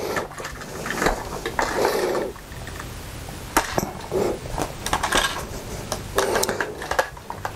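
Lego pieces handled in the hands: a scatter of small, sharp plastic clicks and rattles as a minifigure is fitted together and the toy jeep's roof is handled, with soft rustling of fingers between.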